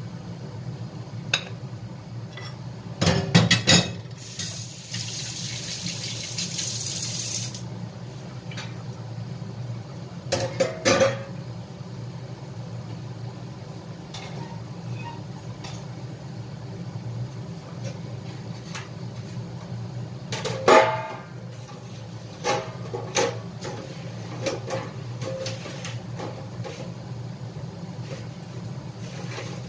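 Dishes and utensils clattering in a sink as they are washed, in several short bursts, with a tap running for a few seconds near the start. A steady low hum lies underneath.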